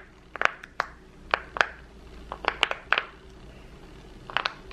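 Bubbles of a cat-shaped silicone push-pop fidget toy being pressed: about ten sharp pops in small clusters of one to three, with pauses between.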